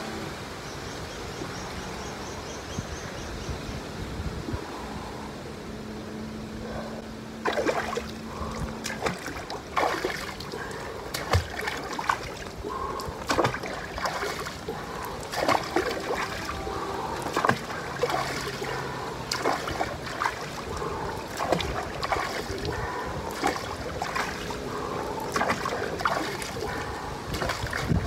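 Water splashing and sloshing in a shallow inflatable pool, churned by a person's hands and legs. A steady watery hiss for the first several seconds, then irregular splashes from about seven seconds in.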